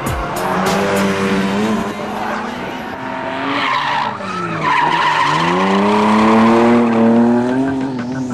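Engine of a BMW drift car revving hard. It drops in pitch about halfway through and then climbs again, while the tyres squeal as the car slides sideways through a corner.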